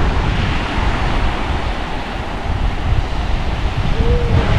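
Wind buffeting the microphone with a steady low rumble, over the hiss of surf breaking on the beach.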